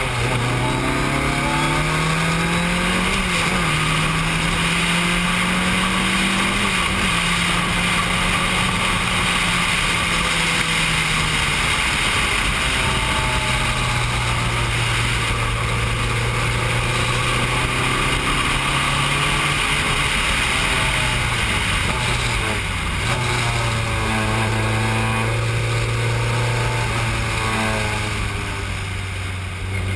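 Formula 3 car's engine heard from the cockpit at racing speed, revs climbing and dropping back through a couple of upshifts in the first several seconds, then held steadier, with a stepped run of downshifts a little past two-thirds through.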